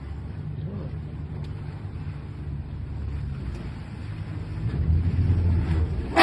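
Boat motor running with a steady low hum, growing louder about five seconds in.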